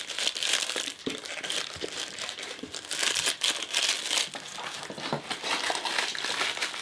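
Chocolate bar wrapper crinkling and rustling as it is handled and folded, the leftover half being wrapped back up; the rustle is busiest about three to four seconds in.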